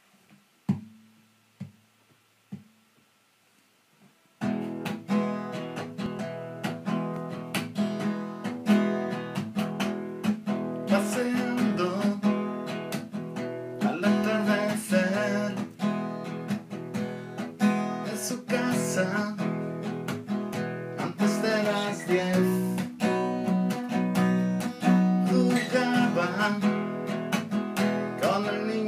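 Acoustic guitar: three soft single low notes a second apart, then steady rhythmic strumming of chords from about four seconds in.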